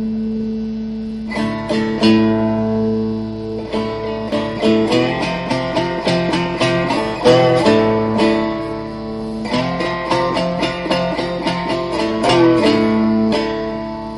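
Three-string cigar box guitar played with a slide. A long ringing note opens, then a run of plucked notes follows, some gliding up or down in pitch under the slide.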